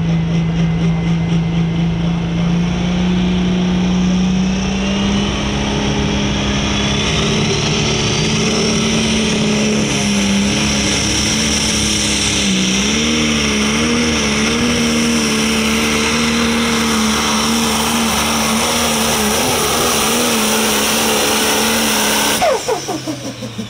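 Pro Stock pulling tractor's turbocharged diesel engine at full throttle, hooked to the sled. Its pitch climbs over the first several seconds, under a whistle that rises with it. The pitch then wobbles through the back half of the pull, and the engine drops off sharply near the end as the throttle is let off.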